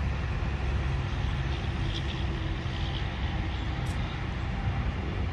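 Steady low rumble of road traffic and vehicles running.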